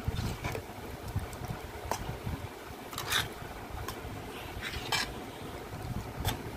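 Metal spoon stirring thick, oily prawn pickle in a pot, with a wet sloshing and several sharp clinks and scrapes of the spoon against the pot's side, the loudest about three and five seconds in. A low steady hum runs underneath.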